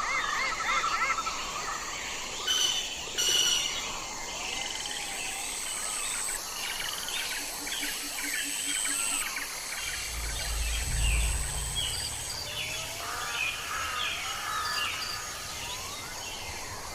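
Many forest birds calling at once, a dense chorus of short chirps, trills and whistles. A thin, steady high whine sounds in three long stretches over the first two-thirds. A low rumble comes in about ten seconds in.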